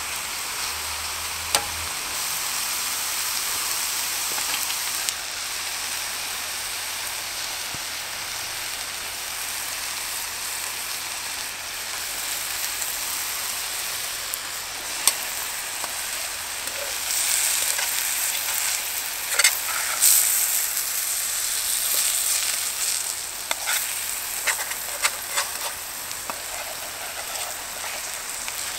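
Burgers sizzling in hot oil in a frying pan over a Trangia alcohol stove, a steady sizzle that swells for a few seconds past the middle. Now and then metal tongs click and scrape against the pan.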